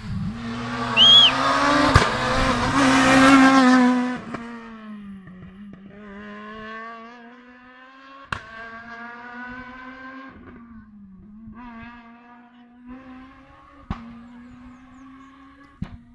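Rally car passing close at full throttle, its engine revving hard, then fading as it climbs away up the road, changing gear along the way. Three sharp cracks stand out as it goes.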